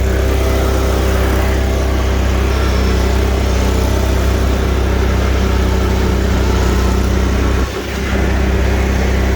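Kubota Kamander commercial zero-turn mower's Kohler engine running steadily under mowing, with the 48-inch deck's blades spinning. The level dips briefly about three-quarters of the way through.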